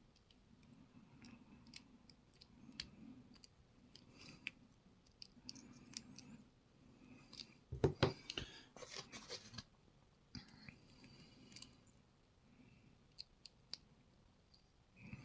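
Small metallic clicks and taps of a padlock and lock-picking tools being handled, with a short burst of louder metal clattering about halfway through.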